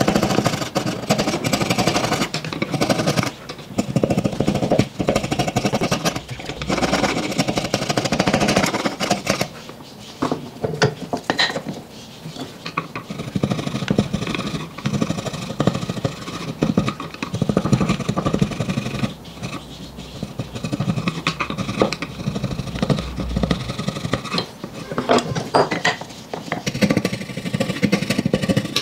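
Woodworking tools working a block of wood: dense rasping and knocking whose level keeps rising and falling, easing off for a few seconds around the middle with a few sharp clicks.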